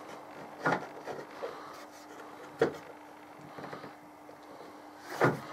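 Hands fitting a plastic ratchet-clamp end piece onto a steel bar and pushing a fixing pin through to lock it: three sharp clicks and knocks, about a second in, near three seconds, and the loudest near the end, with a few lighter ticks between. A faint steady hum runs underneath.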